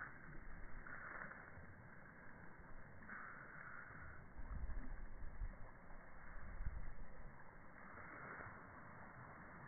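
Faint rushing of water flowing down a concrete channel, with a few low rumbling bumps in the middle.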